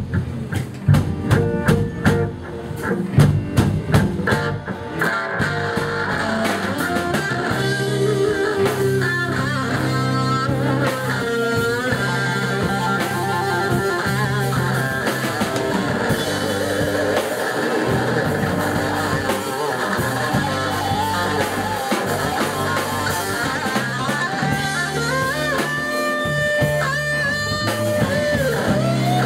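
Live rock band playing: accented drum hits and fills for about the first five seconds, then an electric guitar lead with bent notes over bass and drums.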